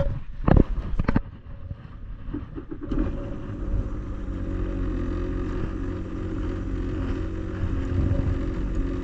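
Sea-Doo personal watercraft engine idling steadily, coming in about three seconds in after a few sharp knocks at the start.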